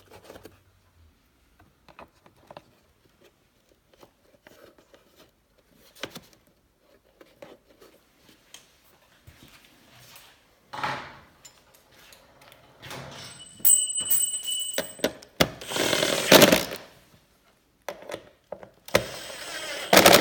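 Hand work on snowmobile fasteners and body panels: scattered small clicks and taps, then several louder scraping, rattling bursts in the second half, with a brief high whine about three quarters of the way through.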